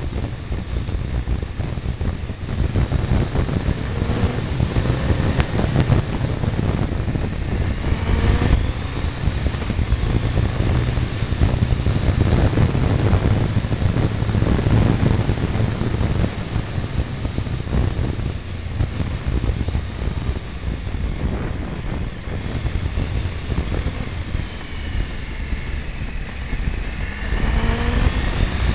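Triumph Tiger 955i's three-cylinder engine running under way, mixed with heavy wind rumble on the mirror-mounted camera. The engine's pitch rises about eight seconds in and again near the end.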